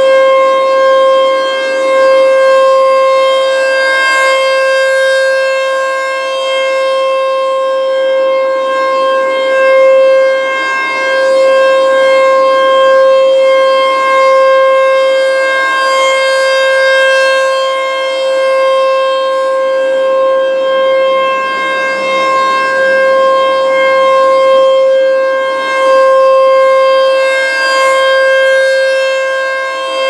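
ASC T-128 rotating electronic warning siren sounding its steady alert: one unwavering tone near 533 Hz with a stack of overtones. The sound swells and fades every several seconds as the turning horn sweeps past.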